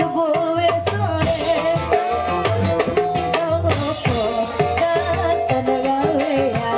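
Live dangdut band music: a woman sings into a microphone over electric keyboard and kendang hand drums, with a recurring bass pulse.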